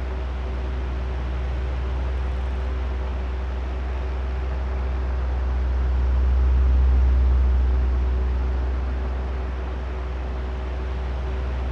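Oscillating electric fan running: a steady low drone of moving air with a thin motor hum. It swells louder and eases off again over a few seconds in the middle as the fan head turns back and forth.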